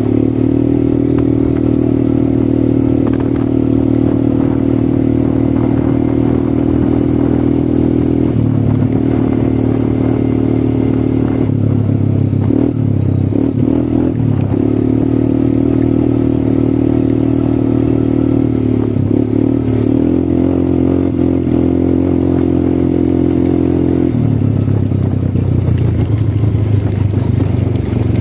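ATV engine running steadily under way, its note shifting several times with the throttle and wavering for a few seconds in the middle.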